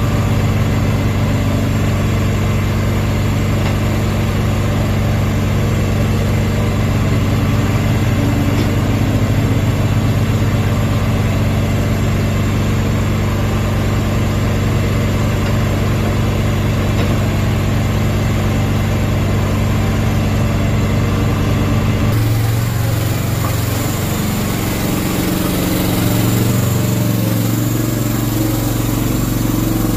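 Kubota 008-3 mini excavator's small diesel engine running steadily while it digs and loads. About 22 seconds in, it gives way abruptly to a different engine note: the Slanetrac HT1000 tracked dumper being driven.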